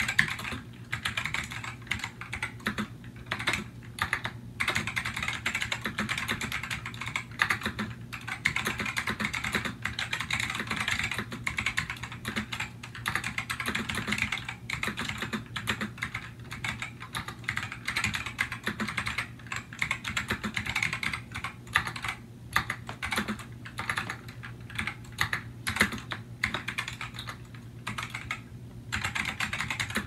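Continuous fast typing on a 2003 first-generation Matias Tactile Pro keyboard with Alps SKBM gray switches: a dense run of clicky key presses, broken by a few brief pauses, one about four seconds in and another near the end.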